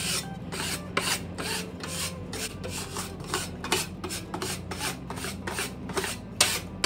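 Metal putty knife scraping back and forth over vinyl decal transfer paper on a ceiling, burnishing the decal down: a run of short rasping strokes, a bit over two a second, with one sharper stroke near the end.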